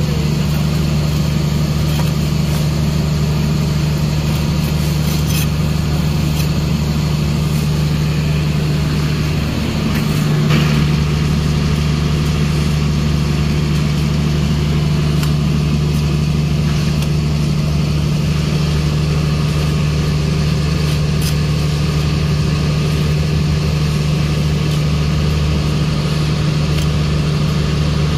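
An engine idling nearby, a steady low drone that dips and swells briefly about ten seconds in.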